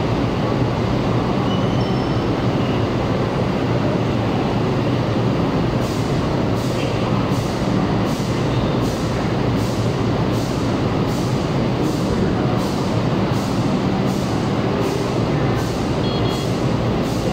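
Light rail trains running on an elevated line, a steady rumble blended with city traffic noise. About six seconds in, a regular high ticking starts, about one and a half ticks a second.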